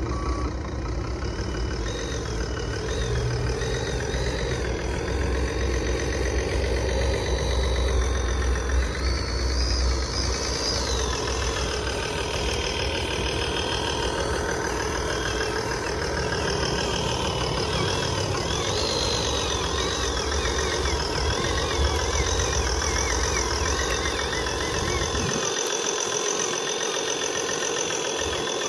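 Radio-controlled model truck running, a steady engine-like rumble with a high whine that rises and falls; the low rumble drops away near the end.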